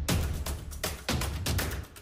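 Background music with a steady, heavy beat and deep bass.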